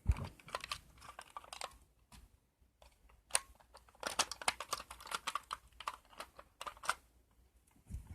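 Handling noise: a phone being set down with a knock at the start, then irregular small clicks, taps and rustles of a plastic smoke detector being handled.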